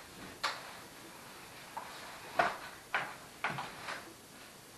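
Stroller frame clicking and knocking as it is handled and turned over during assembly: about half a dozen sharp clicks, the loudest a little past halfway.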